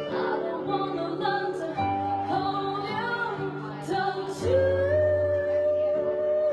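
Live singing of a slow ballad into a microphone over steady sustained chords. About four and a half seconds in, the voice holds one long note.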